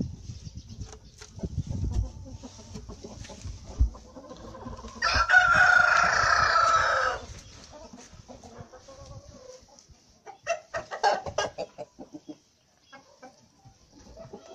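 A rooster crows once, a long call of about two seconds starting about five seconds in, the loudest sound here. About three seconds later a chicken gives a quick run of short clucks. Low thumps sound near the start.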